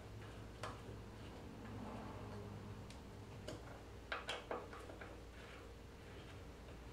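Scattered light clicks and taps of a hand tool working fasteners on an aluminum CNC router carriage: a single click about half a second in, another near the middle, then a quick run of four a little after four seconds, over a low steady hum.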